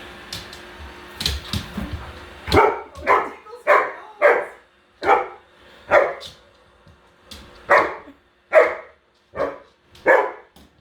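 Alaskan husky barking at a robot vacuum cleaner: about ten sharp barks in a row, starting a couple of seconds in. Before the barks, the vacuum's steady hum.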